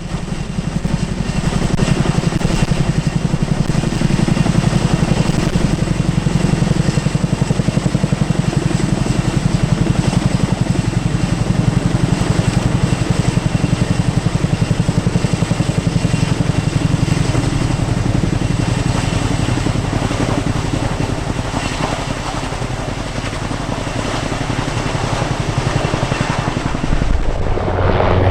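Military transport helicopter running close by: a fast, steady beat of the rotor blades over a high, thin whine. The sound shifts a little near the end.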